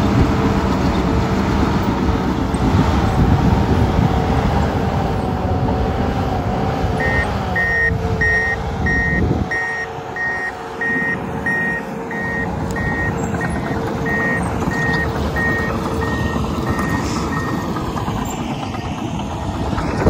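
Komatsu D51PXi crawler dozer's diesel engine running steadily. About a third of the way in, its backup alarm starts beeping about twice a second, signalling the dozer is in reverse; it stops near the end.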